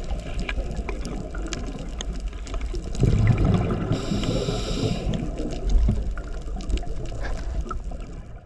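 Underwater sound of a scuba diver breathing through a regulator: a loud bubbling exhalation about three seconds in, then a hissing inhalation about a second later. Under it runs a low rumble with many scattered crackling clicks.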